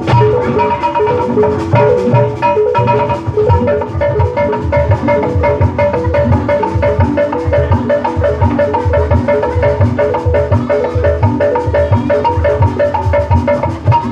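Jaipong accompaniment from a Sundanese gamelan: bronze metallophones play fast runs of repeating notes over steady kendang drum strokes.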